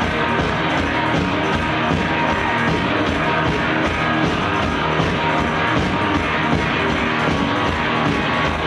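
Live garage rock band playing loudly, recorded from the crowd: electric guitar over a steady beat.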